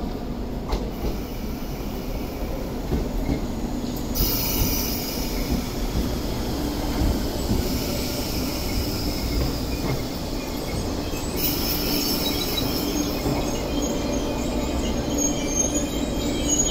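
MTR East Rail line MLR electric train running into the platform and slowing, with rumbling wheels and a steady hum. A high-pitched squeal from the wheels and brakes sets in about four seconds in and comes again stronger near the end.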